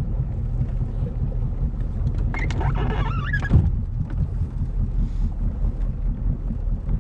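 Boat engine running at low speed, a steady low rumble, as the boat is backed and swung around at the shore. A brief voice is heard about halfway through.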